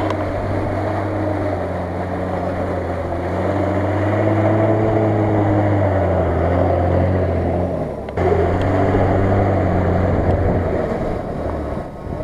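Nissan Patrol 4x4's engine running under load as it drives through mud. It grows louder and rises in pitch as it passes close by about halfway through, and the sound breaks off briefly about eight seconds in.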